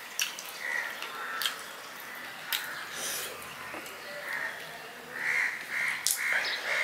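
Close-up mouth sounds of a man eating fried fish by hand: wet chewing and lip smacks, coming thicker near the end, with a few sharp clicks in between.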